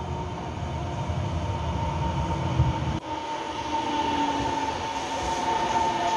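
A Taiwan Railway electric multiple-unit train arriving at an underground platform. Its low rumble is heavy on the approach and changes abruptly about three seconds in as the cars reach the microphone. A steady high-pitched whine then rides over the wheel and rail noise as the carriages pass.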